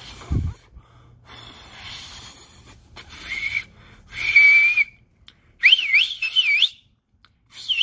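A man whistling without his fingers, using his tongue and tight lips. There is a low bump just after the start and some breathy rushes of air, then a steady high whistle about four seconds in, followed by warbling whistles that swoop up and down, with another burst near the end.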